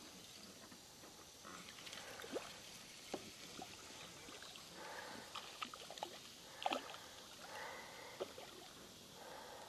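Spinning reel being cranked: faint intermittent whirring from the reel with scattered small clicks and knocks from handling the rod and reel.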